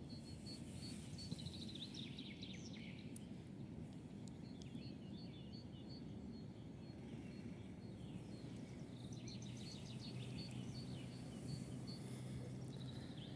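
Songbirds singing: one repeats a short high note at an even pace throughout, and two longer falling trilling phrases come about a second in and again near the end, over a faint steady low rumble of outdoor noise.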